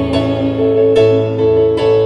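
Slow ballad played live on a stage keyboard with a piano sound, sustained chords struck about three times, with no singing.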